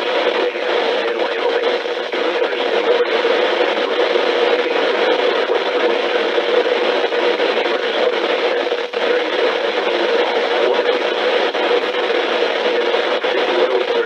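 Weather radio receiver hissing with loud, steady static over a constant low tone, with no clear voice coming through.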